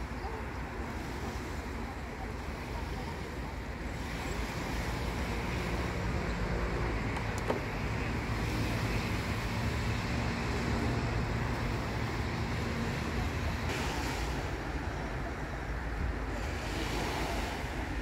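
Gentle sea surf washing over a rocky shore and a shallow beach, with wind buffeting the microphone. A faint low motor hum runs under it through the middle.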